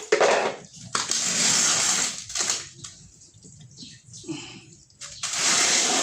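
Water gushing in two bursts of about a second and a half each, starting and stopping abruptly, with quieter splashing between.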